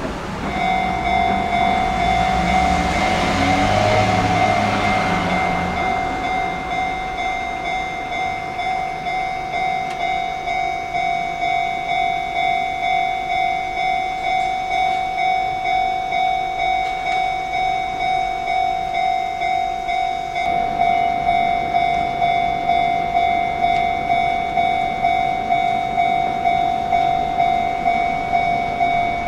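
Japanese railway level-crossing warning bell ringing in an even, pulsing rhythm, a little under two strokes a second. A train runs past during the first few seconds, and the bell grows louder about two-thirds of the way through.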